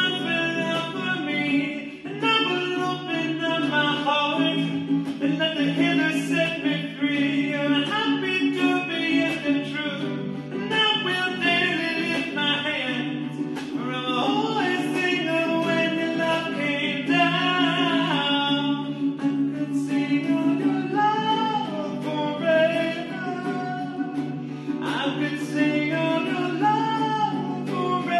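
A man singing a hymn while strumming chords on a ukulele.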